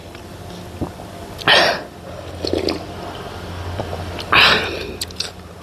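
Loud slurping of thukpa noodle soup from a spoon, two slurps about three seconds apart.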